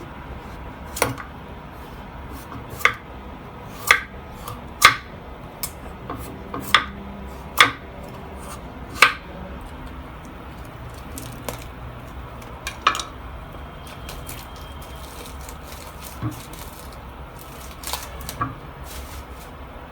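Sharp clicks and taps, like utensils against dishes, coming roughly once a second at first, then sparser.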